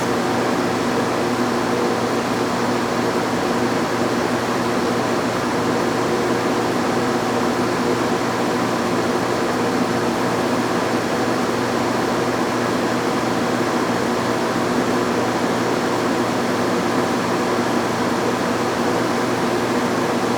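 Metal lathe running with a steady hum, taking a light finishing boring pass in a pulley's bore, about a thousandth of an inch from final size.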